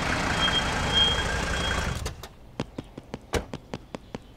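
Car sound effect running loudly for about two seconds with a faint high squeal, then cutting off abruptly. Quick footsteps follow, about five steps a second.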